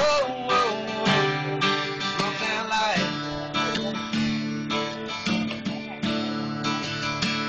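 Country song music with acoustic guitar strumming a steady pattern, a few notes sliding down in pitch in the first three seconds.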